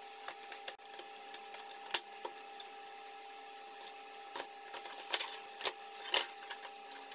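Irregular sharp metallic clicks and taps from pliers working the sheet-metal holding clips on a toaster's frame, bending them back to free the filament cards. The loudest clicks come about two seconds and about six seconds in.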